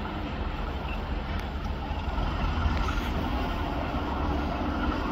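English Electric diesel locomotive of a railtour approaching slowly, its engine running steadily and growing a little louder.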